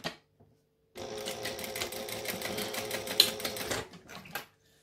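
Industrial lockstitch sewing machine running at speed for about three seconds, stitching across a vinyl zipper tab, then stopping, with a couple of short stitch runs after. A faint steady motor hum is heard between runs.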